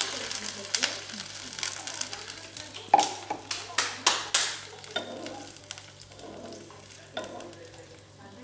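Water just poured into a pan of hot oil and sautéed shallots and garlic, sizzling and fading away as it settles. About three to four and a half seconds in come several sharp clicks of the metal spoon and pan.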